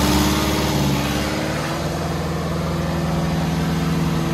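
Kubota M1-85 tractor's diesel engine running steadily, its low rumble easing slightly about a second in.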